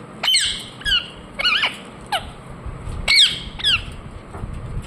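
Ringneck parrot giving a string of short, shrill squawks, about six of them spaced roughly half a second to a second apart.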